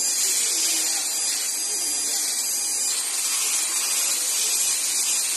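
Small handheld high-speed rotary tool (pen grinder) running with a steady high-pitched whine and hiss while grinding a small SS304 stainless steel RV brake plug fitting.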